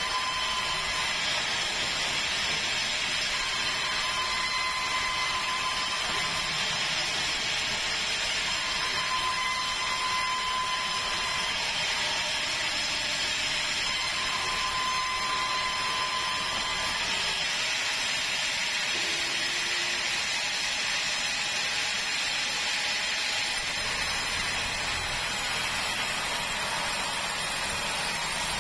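Sawmill band saw cutting lengthwise through a large keruing log: a steady hiss of sawing over the machine's running, with a thin whine that comes and goes.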